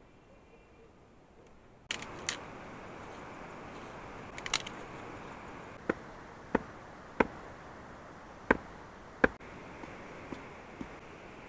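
A flat stone knocking a wooden stake into the ground: five sharp knocks, a little under a second apart, starting about halfway through. A few lighter clicks and taps come before them.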